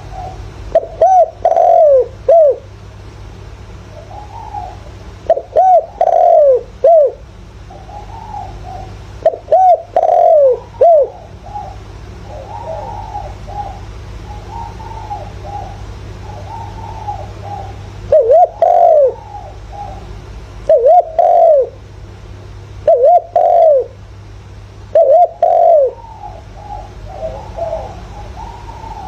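Spotted dove cooing: seven loud phrases of falling coos every few seconds, with softer, lower-level cooing in the gaps between them.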